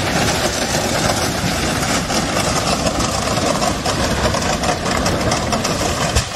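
Freight train of autorack cars rolling past: a steady, dense rumble and rattle of the cars and wheels on the track.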